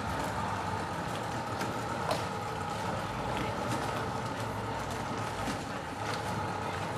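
Steady outdoor background noise, a low even rumble, with a few faint sharp clicks.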